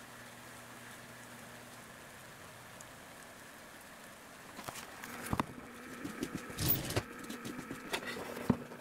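Motorized damper's actuator humming faintly and steadily as it drives the aluminium blades closed after its power is cut. From about halfway there is a scatter of irregular clicks and knocks.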